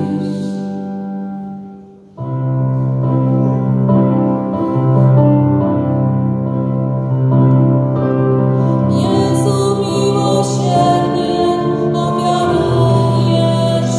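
Christmas carol by a small mixed vocal group with keyboard accompaniment: a sung chord fades away, then about two seconds in held keyboard chords over a steady bass begin, and the voices come back in over them.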